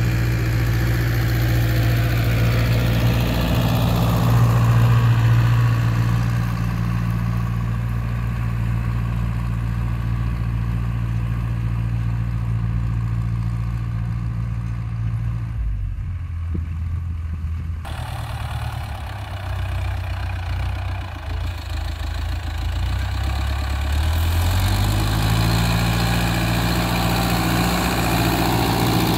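Ursus tractor's diesel engine working hard under load as it pulls a tillage implement through the soil. It runs steadily, its note dips and changes about halfway through, then rises again as the engine picks up revs near the end.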